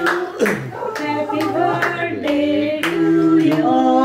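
A group of people singing a birthday song together, with hand claps in time, about two a second.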